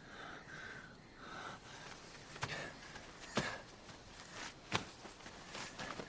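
Quiet background with a faint high trill that comes and goes, and a few sharp single clicks or knocks spaced out through it.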